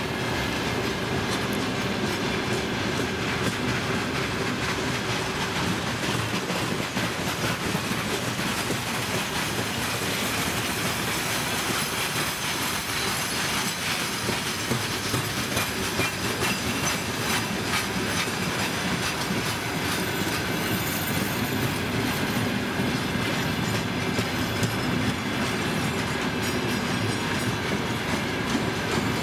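Freight train wagons rolling past, their wheels clattering over the rail joints in a steady run of clicks.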